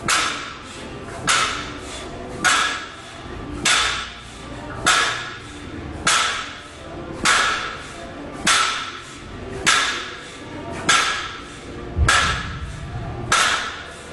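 Loaded 190 lb barbell touched down on the gym floor between fast deadlift reps: a clank of the weight plates about every 1.2 seconds, a dozen times, each ringing briefly.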